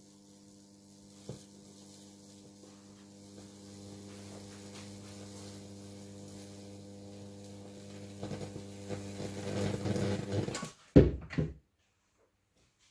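High-voltage transformer humming while a fractal (Lichtenberg) burn crackles and sizzles through the wood. The crackling grows denser and louder over the last few seconds. Two loud pops come near the end, then the sound cuts off suddenly.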